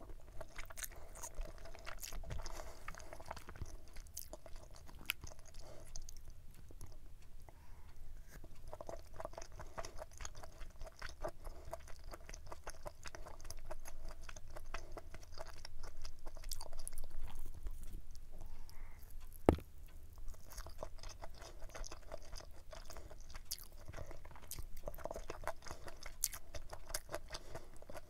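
Close chewing of spicy stir-fried pork intestines with glass noodles and vegetables: a steady run of small mouth clicks and crunches, with one sharp click about 19 seconds in.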